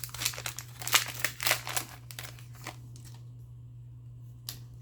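Foil trading card pack wrapper crinkling as it is torn open and handled, for about two and a half seconds, then quieter with a single click near the end.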